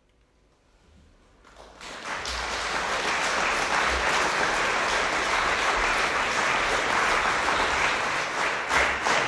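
Audience applauding. After a moment of near silence the clapping starts about a second and a half in, swells within a second, and holds steady.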